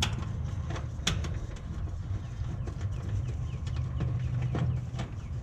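Outdoor background: a steady low rumble with a few sharp clicks, and small birds chirping faintly near the end.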